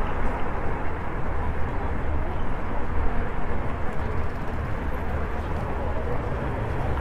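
Steady rumbling ride noise from an e-scooter moving along a city street: wheels rolling over the pavement and air rushing past the microphone.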